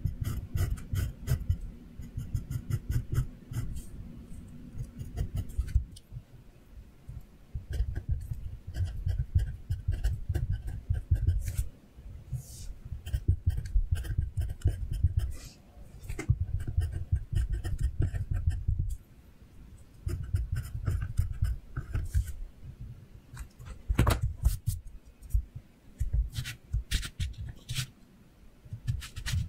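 Pencil strokes scratching on paper in quick runs of hatching, with dull low thumps under the strokes and several short pauses between runs.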